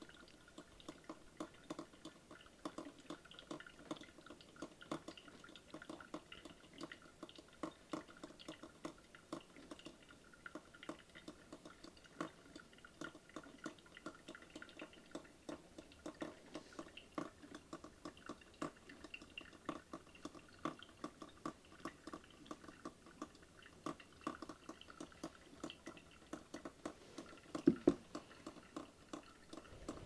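1998 Mr. Coffee BL110 10-cup drip coffee maker brewing: faint, quick, irregular pops and drips, several a second, as hot water spits through and drips into the carafe. One louder thump near the end.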